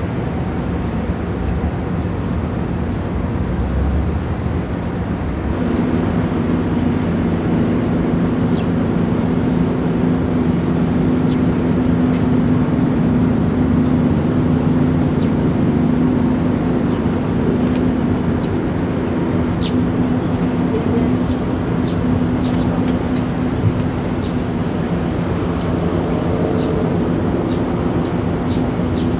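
Steady engine drone with a low hum that grows stronger about five seconds in and then holds.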